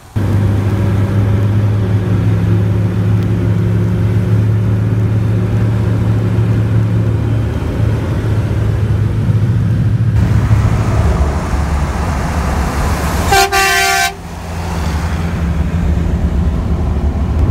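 Steady engine and road drone inside a moving vehicle. About two-thirds of the way through comes one short blast, under a second long, of a truck air horn fitted to the Jeep driving ahead.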